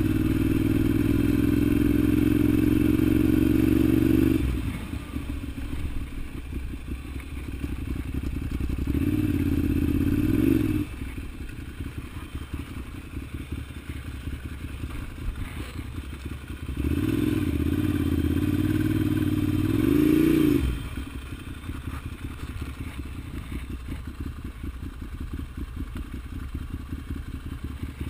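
Ducati Monster 795's air-cooled L-twin engine heard while riding: it pulls under throttle with rising pitch for about four seconds, then drops to a low, uneven off-throttle burble. It pulls again about nine seconds in and about seventeen seconds in, each time falling back to the uneven burble, which runs on near the end.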